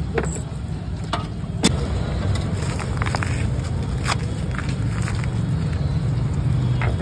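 Steady low engine hum of street traffic, with scattered sharp clicks and taps.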